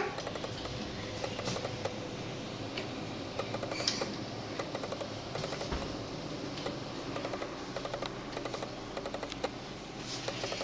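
Light clicking and rattling from a computer desk's keyboard tray as a small child grips and handles it, with a sharper knock about four seconds in. A brief high squeal comes right at the start.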